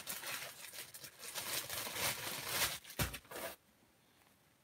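A cloth towel rustles and rubs close to the microphone, with a soft thump about three seconds in. The rustling cuts off half a second later.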